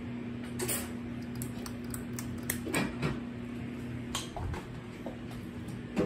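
Hunter Allendale 52-inch ceiling fan running, its motor giving a steady low hum, with scattered light clicks and clinks throughout.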